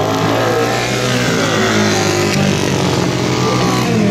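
Flat-track racing motorcycles running on a dirt oval, engine pitch rising and falling as the riders throttle on and off through the turn.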